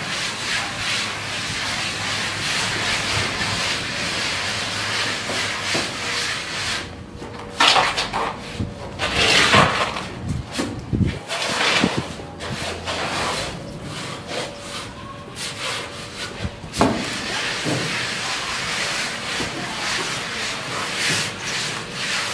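Steel plastering trowels scraping and rubbing wet cement render across a wall in repeated, irregular rasping strokes.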